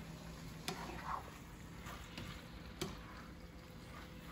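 A spatula working raw ground beef in a skillet: faint stirring and scraping, with two sharp taps against the pan, one under a second in and one near three seconds in.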